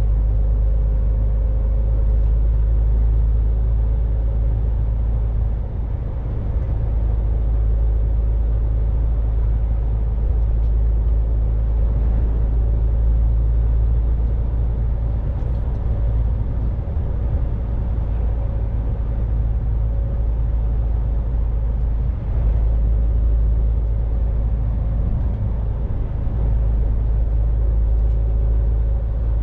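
MAN truck running at cruising speed on a motorway: a steady low engine and road rumble with a faint even drone above it.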